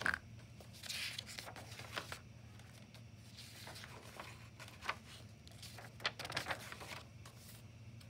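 Paper pages of a paperback book being turned and smoothed flat by hand: faint rustles and swishes, several in a row.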